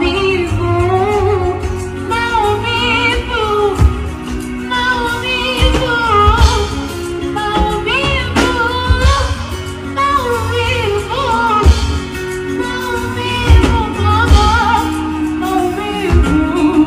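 A female vocalist sings a Swahili pop song with a wavering, ornamented melody over a backing track with a heavy bass beat.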